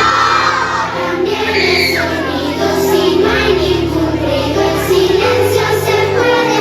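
Music: a group of young children singing a song over a backing track with sustained bass notes that change every second or two.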